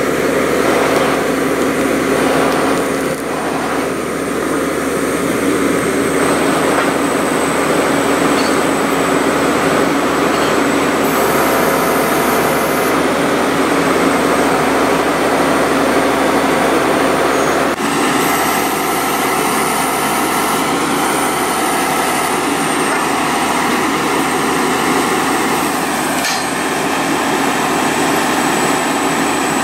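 Horizontal directional drilling rig running loud and steady, its engine and drive working without a break; the tone of the machinery changes slightly a little past halfway.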